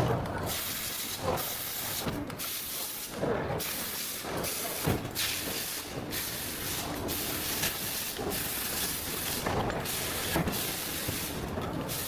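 Speaker-driver factory work noise: a steady hiss that cuts out briefly every second or two, with scattered light knocks.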